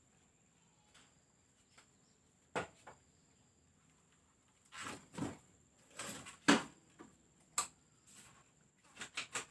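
Scattered knocks and clicks of something being handled: a single knock about two and a half seconds in, a cluster around five to seven seconds, and a quick run of clicks near the end.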